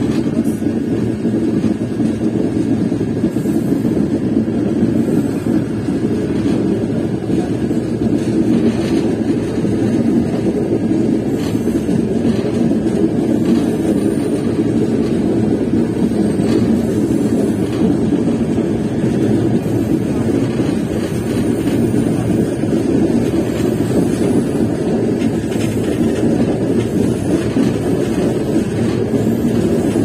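Passenger train running steadily, a constant low rumble heard from inside the carriage by the window.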